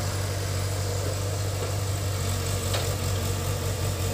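Diesel engine of a JCB tracked excavator running steadily with a low, even hum while the machine digs mud.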